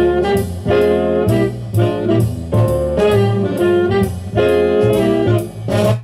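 Recorded music played from a CD through a hi-fi amplifier and loudspeaker, with a regular beat, cutting off suddenly at the end.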